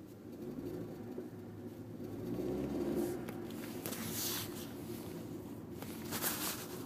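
2006 Audi B7 A4 turbo accelerating on light throttle, its engine hum swelling about two seconds in. Twice a scratchy, rasping noise comes from the dash/steering column area, like a scratched CD spinning; it appears only under low boost pressure.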